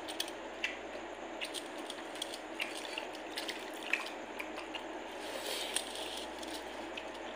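Wet, squishy sounds of pakhala bhata (rice soaked in water) being mixed and scooped by hand on a plate, with small drips and many scattered light clicks.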